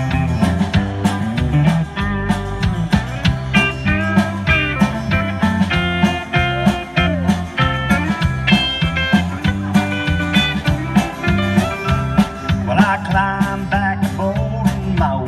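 Live country-rock band playing an instrumental stretch: a lead guitar melody over drums and bass with a steady beat.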